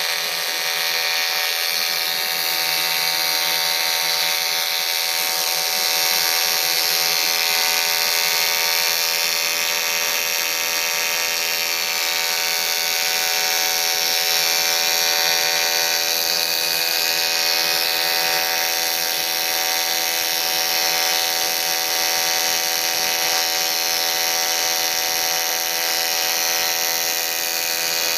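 AC TIG welding arc on aluminium, a steady electric buzz with a hiss that runs without a break.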